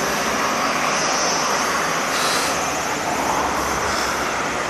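Steady rushing noise of wind and road on a camera moving along a street, with a low rumble underneath and no distinct engine note.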